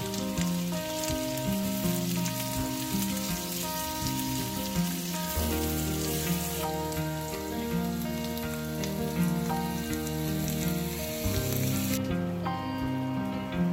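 Boiled potatoes frying in butter in a pan, sizzling steadily under background music. The sizzling cuts off near the end, leaving only the music.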